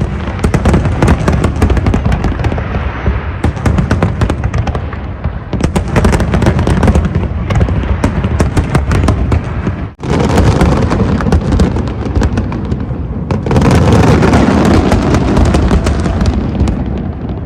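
Fireworks display: a dense, continuous run of rapid bangs and crackling over deep booms. The sound drops out suddenly for an instant about ten seconds in, then carries on.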